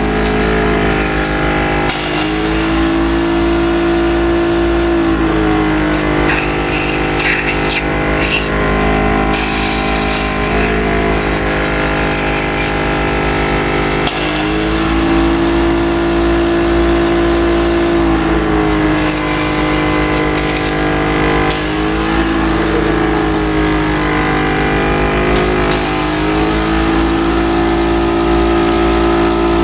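Motorised airway-clearance therapy machine running with a steady buzz, its pitch stepping up, holding for a few seconds and dropping back again, several times over.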